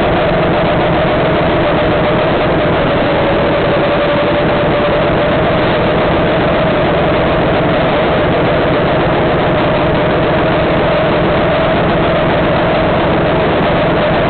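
Go-kart engine running at high revs while lapping, heard close from a camera mounted on the kart, over a steady wash of noise. The engine note holds high, sags a little about four seconds in, then climbs back.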